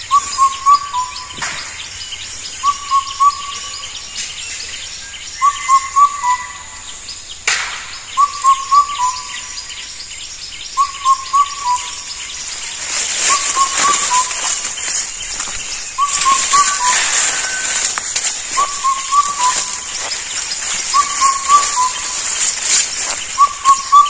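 Indian cuckoo calling its four-note whistled phrase, the last note lower, repeated about every two and a half seconds. A steady high hiss in the background grows louder about halfway through.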